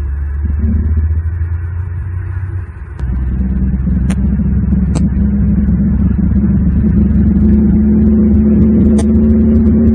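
Steady low rumble of a motor vehicle engine, with a pitched engine tone that grows stronger and louder about three seconds in; a few faint sharp clicks.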